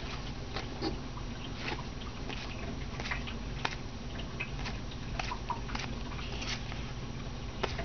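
Baseball trading cards being handled and flipped through by hand, with irregular soft clicks and rustles of card stock and wrappers. Under them is a steady low hum from a washing machine running in the background.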